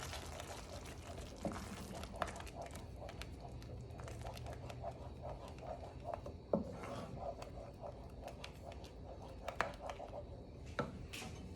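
Orange sauce thickened with cornstarch simmering in a pan over low heat: faint bubbling with many small pops, and a few louder sharp clicks.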